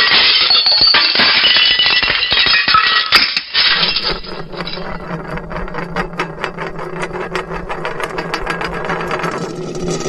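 Cartoon fall-down-stairs sound effect: a dense, tumbling clatter of crashes and knocks. About three and a half seconds in it settles into a fast, even run of knocks over a steady low hum.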